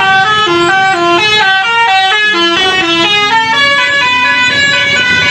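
Indonesian 'telolet' musical bus horn playing a quick tune of short stepped notes, then longer held notes about three and a half seconds in, over a low rumble.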